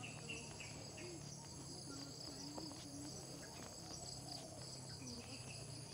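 A steady high-pitched chorus of tropical insects shrilling, with a few short bird chirps over it.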